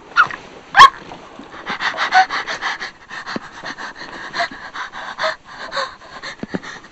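A person's heavy, rapid panting, with two sharp gasps in the first second followed by short quick breaths about three a second.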